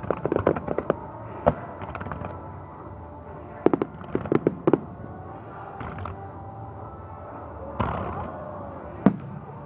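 Aerial fireworks going off: a rapid string of sharp bangs in the first second, another flurry about four seconds in, and single bangs later on, over music playing with the show.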